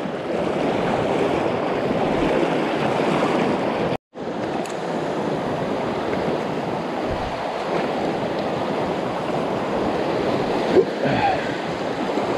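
Steady rush of a shallow river riffle pouring over rocks. The sound cuts out for a split second about four seconds in.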